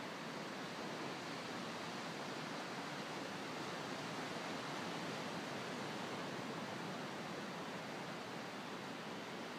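Ocean surf breaking on a sandy beach, heard as a steady, even wash with no separate crashes.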